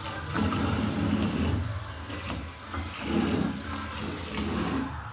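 Water sloshing and splashing in a filled sink as a tilapia is washed by hand, in several uneven surges.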